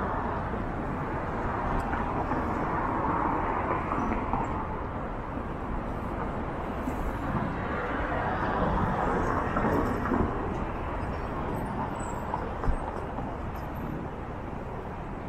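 City street traffic: cars passing on the road alongside, the noise swelling and fading a couple of times over a steady background hum.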